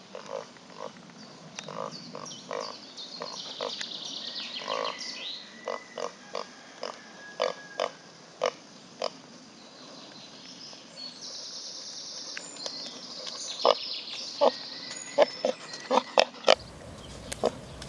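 Potbellied pig giving many short grunts in a loose series, the loudest ones near the end as it comes right up to the microphone.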